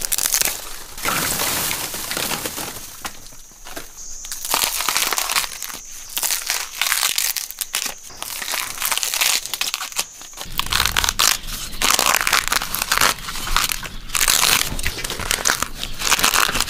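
Young spiny bamboo shoots being snapped off and their dry sheaths torn away by gloved hands: a dense run of crackling, crunching and ripping.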